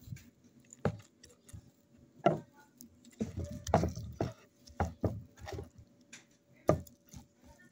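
Large kitchen knife chopping cooked pork carnitas on a wooden cutting board: about nine irregular knocks of the blade hitting the wood, with a quick cluster of strokes in the middle.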